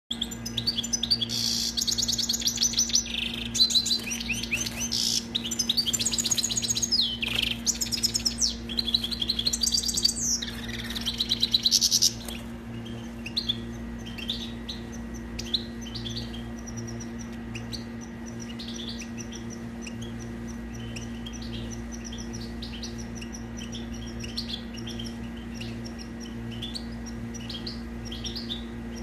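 A finch singing: loud, rapid trilled and twittering phrases for about the first twelve seconds, then softer scattered chirps. A steady low hum runs underneath.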